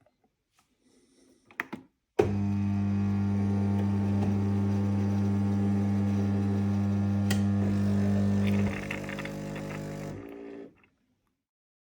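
Siemens EQ.9 S700 fully automatic coffee machine running: a few light clicks, then a steady low motor hum that starts suddenly, drops to a lower level near the end and then stops.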